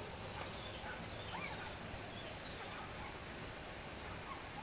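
Quiet rural outdoor ambience: a steady hiss with a few faint bird calls, the clearest about a second and a half in.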